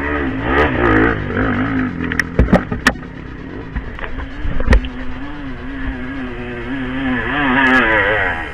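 Off-road trail motorcycle engines revving unevenly as the bikes climb a loose dirt hill, their pitch rising and falling with the throttle. A few sharp knocks come in the middle, and the nearest bike gets louder near the end as it comes up close.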